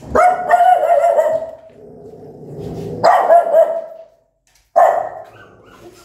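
Small mother dog barking at a high pitch, aggressively. A long drawn-out bark comes first, then two shorter bursts about three and five seconds in.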